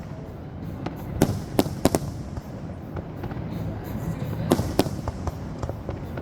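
Fireworks shells bursting overhead: three sharp bangs a little after a second in and two more about three seconds later, with smaller pops and crackles between, over a steady low rumble.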